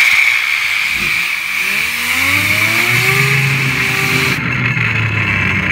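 Compressed air hissing loudly from an air blow gun as it blasts a fidget spinner, cutting off about four seconds in. Under the hiss the spinner's whine rises in pitch as it spins up, then holds steady and keeps whirring after the air stops.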